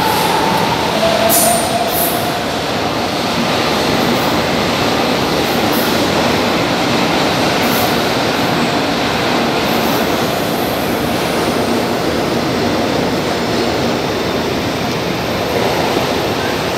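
São Paulo Metro trains running through the station: a continuous rumble and rush of wheels on rails, with a brief faint wheel squeal in the first couple of seconds.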